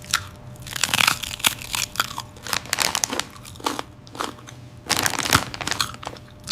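Crunchy corn snacks being bitten and chewed, loud crisp crunching in three bouts, about one, three and five seconds in.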